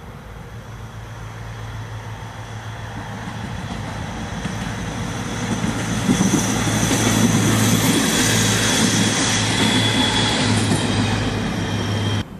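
Diesel passenger railcar passing on the track. It grows steadily louder and is loudest over the middle seconds, with a steady low engine hum, a rumble of wheels on rail and thin high wheel squeal, then cuts off suddenly near the end.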